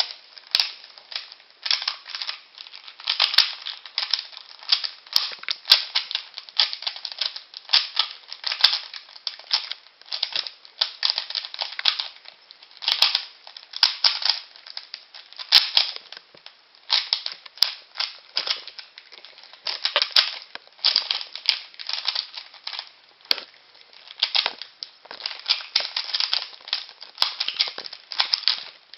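A plastic Rubik's Cube being turned fast by hand in a timed solve: the layers clack and rattle as they snap round, in quick flurries of turns with short pauses between.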